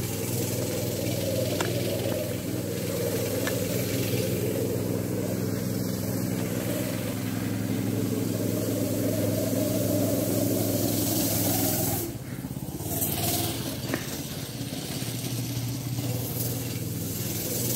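Go-kart's small engine running at a steady speed, dropping quieter about twelve seconds in and running on.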